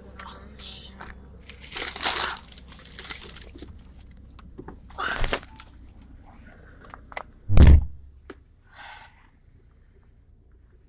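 Crinkling, crunching handling noises: a string of short crackles and scrapes, with one heavy dull thump about seven and a half seconds in.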